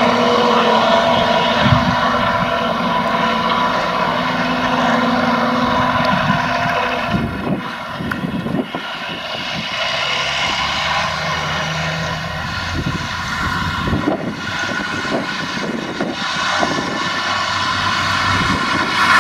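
Massey Ferguson tractor engine and Krone rear disc mower running together in a steady mechanical drone with a high whine, as the mower cuts grass. About seven seconds in the sound becomes rougher and uneven, with short irregular bursts.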